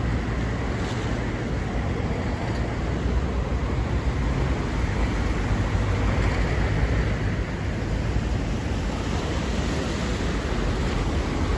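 Strong Atlantic Ocean surf: a steady wash of breaking waves over a deep, continuous rumble, swelling slightly around the middle.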